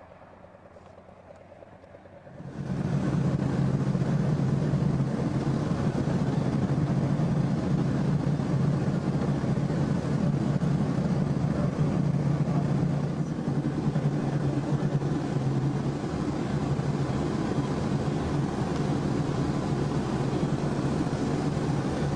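Steady engine and road noise heard from inside a moving vehicle, starting abruptly about two and a half seconds in after a faint, quiet stretch.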